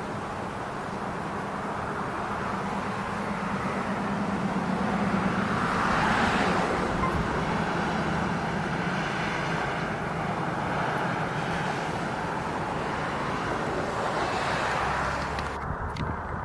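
Road traffic: vehicles driving past, one passing about six seconds in and another near the end, over a steady traffic hum.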